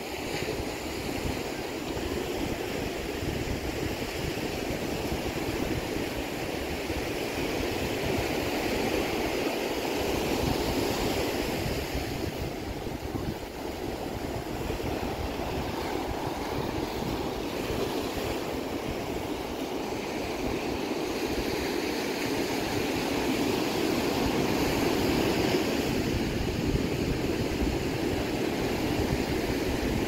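Ocean surf breaking and washing up the beach, a steady rushing that swells and eases, with wind rumbling on the microphone.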